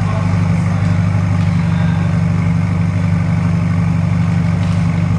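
2016 Ferrari California T's twin-turbo 3.9-litre V8 idling steadily through a muffler-delete exhaust.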